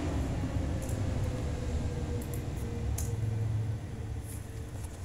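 A few short, sharp clicks of a computer keyboard being typed on, spaced about a second apart, over a steady low hum.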